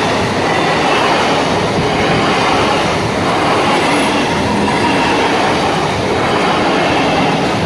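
Electric multiple-unit (EMU) local train passing close by, its coaches and wheels making a loud, steady rumble and rattle on the rails.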